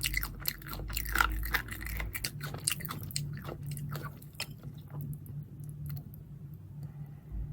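Close-miked chewing of crunchy food, with dense crisp crunches that thin out to slower, quieter chewing after about four seconds.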